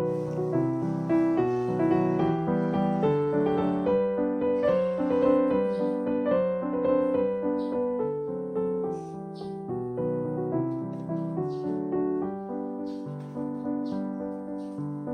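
Background music: a gentle piano melody with a steady flow of notes.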